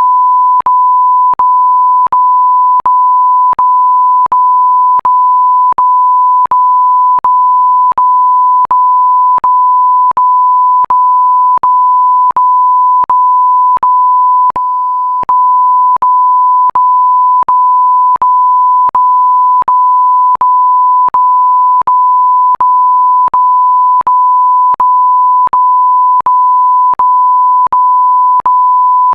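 A continuous electronic beep tone held at one steady pitch, broken by a faint click about every three-quarters of a second, with a brief drop in level about halfway through. No fireworks are heard.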